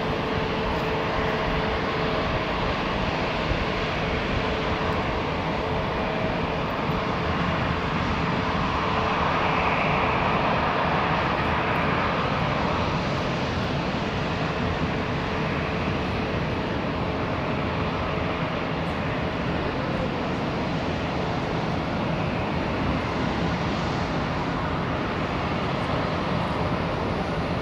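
Fixed-wing aircraft engines running: a steady rumble with a faint whine that swells about ten seconds in, then eases off.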